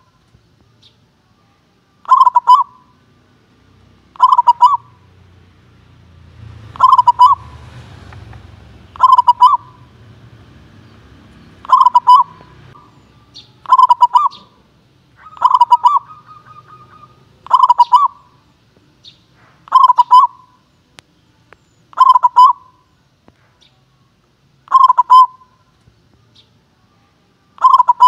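Zebra dove cooing its song: a short, rapid cluster of staccato cooing notes, repeated about every two seconds, a dozen times.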